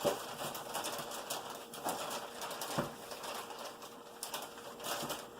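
Rustling and crackling of packaging with a few sharp knocks as frozen breaded fried chicken pieces are handled and sorted out of their box.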